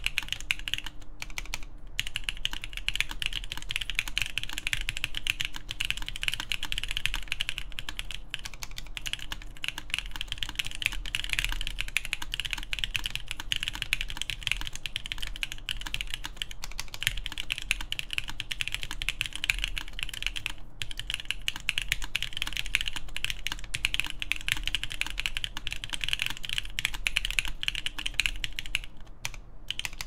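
Continuous fast typing on a Keycult No. 2 TKL mechanical keyboard with lubed Kailh Cream switches, a full aluminium plate and Hammerworks CRP keycaps, with a few brief pauses.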